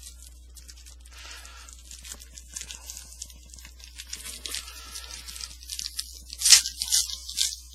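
Foil trading-card pack being torn open and crinkled, a run of crackling rips that grows denser and louder, with the loudest tear about two thirds of the way in.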